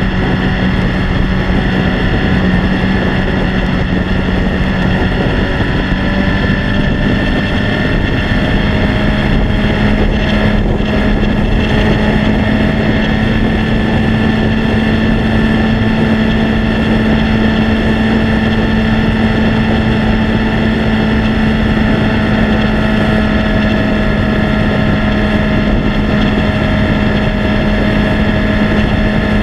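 Gen 1 Suzuki Hayabusa's 1300 cc inline-four running steadily at highway cruising speed, with wind rushing over the microphone. Its pitch edges up slightly about ten seconds in and then holds.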